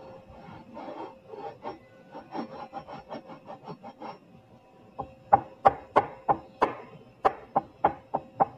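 A fast run of short scraping strokes, then from about halfway a series of sharp, loud clicks, roughly three a second.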